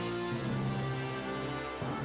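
Intro theme music: sustained chords over a deep bass, shifting to a new chord near the end.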